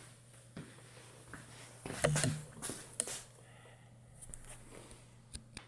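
Short metallic knocks and clatter of tools and gearbox parts being handled while a sawmill gearbox is stripped down, loudest about two seconds in, with a few light clicks near the end over a steady low hum.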